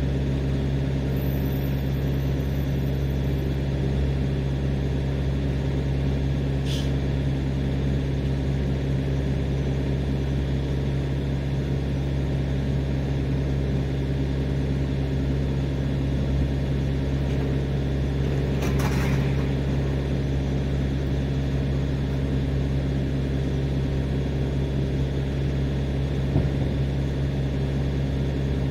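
Steady engine hum from a parked refrigerated delivery truck, running evenly without change. Two brief high-pitched chirps or squeaks come through, about 7 and 19 seconds in.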